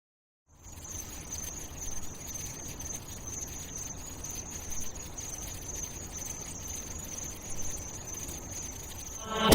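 After a brief silence, a steady high-pitched chirring hiss over a low rumble, with no beat or voice. Music begins right at the very end.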